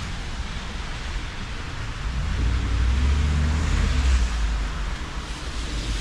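A vehicle passing on a wet, slushy street: a deep engine and tyre rumble swells from about two seconds in and eases off near the end, over a steady background hiss.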